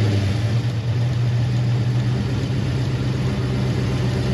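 Dodge Charger SRT Hellcat's supercharged 6.2-litre V8 idling steadily with a low, even rumble, just after being started.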